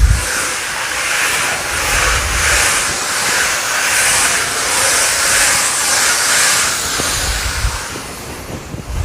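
Steam jet of a Hoover Steam Complete Pet steam mop hissing in steam blast mode, the hiss swelling and fading about twice a second, with a few low thumps.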